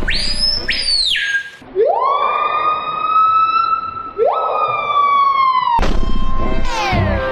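Bird-of-prey calls: a high call that drops in pitch, then two long whistled screams that each sweep up and hold steady, and after a sudden switch near the end a different call with quick repeated rising-and-falling notes.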